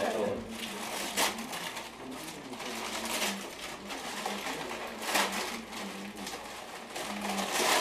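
Gift wrapping paper crinkling and tearing as a present is unwrapped, with several louder rips spread through the stretch.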